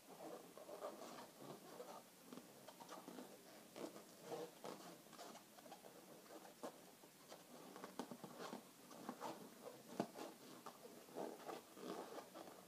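Inflated latex 260 twisting balloons rubbing and squeaking under the hands as they are twisted and tucked together. The squeaks and small clicks come faint and irregular, with the sharpest tick about ten seconds in.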